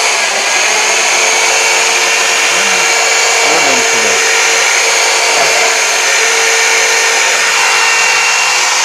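Electric drill motor running steadily at full speed, mounted in a homemade drill press stand, with a constant high whine.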